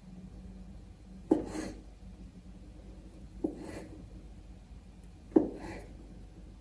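Kitchen knife slicing through hot dog sausages onto a wooden cutting board: three cuts about two seconds apart, each a sharp knock of the blade on the board followed by a brief scrape.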